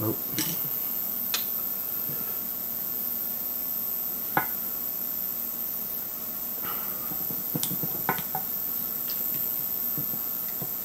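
Scattered light clicks and taps of a metal pick and fingers against the aluminium oil pump housing of a Saab B234 timing cover, prising at an old O-ring that has gone hard. The clicks come about nine times, irregularly, with the sharpest one about four and a half seconds in, over a steady background hum.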